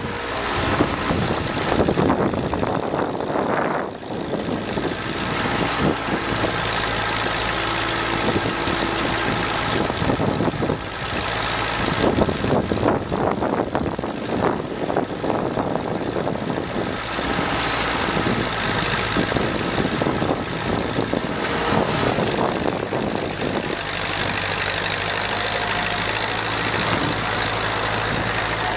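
Ford 2N tractor's four-cylinder flathead engine running steadily as the tractor works its front-end loader in snow, with louder stretches now and then.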